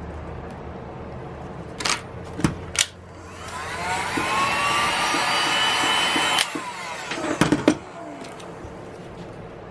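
Handheld heat gun switched on briefly to soften adhesive: its fan whine rises in pitch, runs steadily for about three seconds, then cuts off suddenly. A few sharp clicks and knocks come before and after it.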